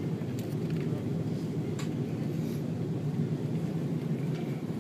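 Steady low rumble of an Airbus A330 airliner heard from inside the cabin as it taxis after landing, with a few faint clicks.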